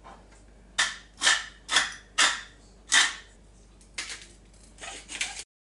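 Hand pepper mill being twisted over food, grinding in five sharp strokes about half a second apart, then several quieter, quicker twists near the end before the sound cuts off suddenly.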